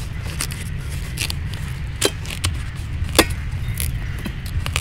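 A knife clicking and knocking on watermelon as it is cut, with three sharper clicks about two seconds in, about three seconds in and near the end, over a steady low rumble.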